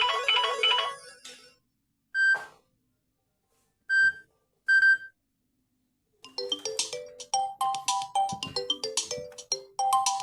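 Samsung Galaxy Tab A7 Lite ringtones playing in turn. One ringtone's repeating note pattern fades out, three short single chime notes follow, and a quick bright melodic ringtone starts about six seconds in.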